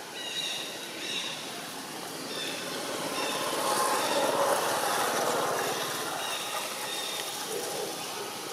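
A passing vehicle: a steady noise that swells to a peak about four to five seconds in, then fades.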